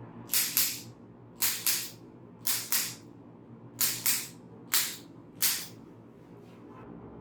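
About ten short, sharp hissing bursts, mostly in quick pairs roughly a second apart, with a few fainter ones near the end.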